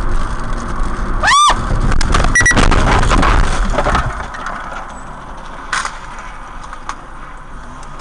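Car driving in traffic, heard from inside the cabin: a short, sharply rising squeal about a second in, then a couple of seconds of loud rushing noise that dies down to steady road noise about four seconds in.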